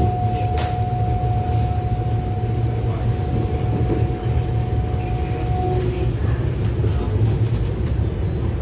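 Cabin noise of an MTR SP1900 electric train running: a steady low rumble with a steady high whine that stops about six seconds in, and a few light clicks.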